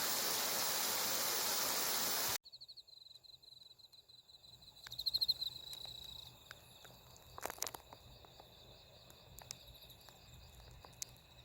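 A loud steady hiss cuts off abruptly about two seconds in, leaving crickets chirping and trilling at night, with a few faint clicks.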